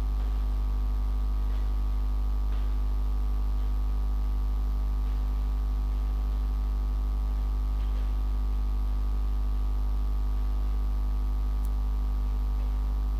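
Steady electrical hum with a buzz of overtones and a light hiss, unchanging in level and pitch.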